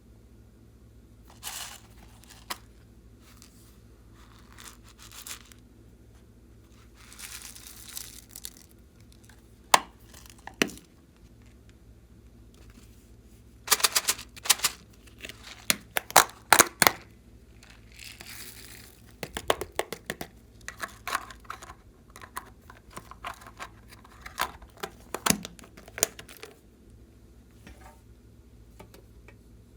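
Slime being handled: sticky crackles, clicks and tearing sounds in irregular bursts, busiest about halfway through.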